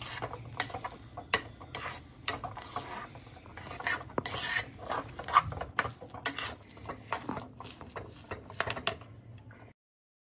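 Spatula scraping and stirring a thick, sticky tilgul mixture of roasted sesame seeds, crushed peanuts and jaggery syrup around a heavy-bottomed kadhai, in irregular rasping strokes with light knocks. The sound cuts off abruptly near the end.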